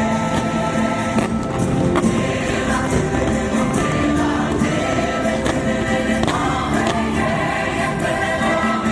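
Fireworks show soundtrack over loudspeakers: music with a choir singing held notes.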